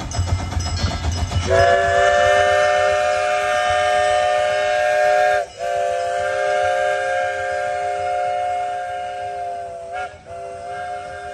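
Miniature steam locomotive's whistle blowing a long blast of several tones at once, broken twice by brief gaps. It starts about a second and a half in, over the low rumble of the passing train.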